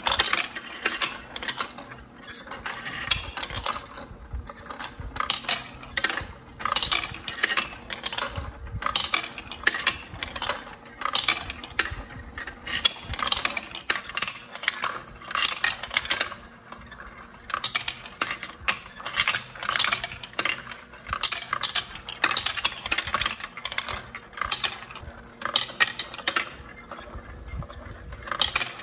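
Plastic marbles clattering and rolling through a building-block marble run: a dense run of irregular clicks and knocks as they drop along plastic tracks, ride up a spiral lift tower and spin around a plastic bowl.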